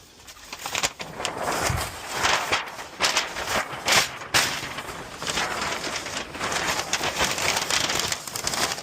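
Packing paper from a roll being crumpled, crinkled and stuffed into a cardboard box around a packed vacuum, an irregular run of crackles and rustles.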